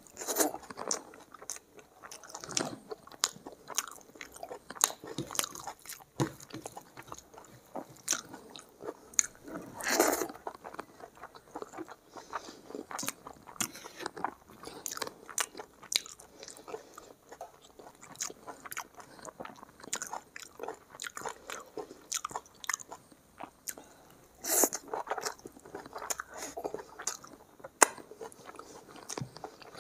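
Close-miked chewing of rice and egg curry eaten by hand: a dense run of short, wet mouth clicks, with a few louder bites.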